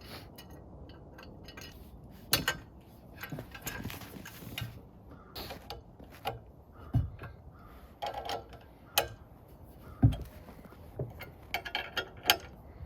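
Irregular clicks, clanks and knocks of metal parts being handled as an Alaskan chainsaw mill is reassembled on the saw, a dozen or so separate strikes with a few louder thumps.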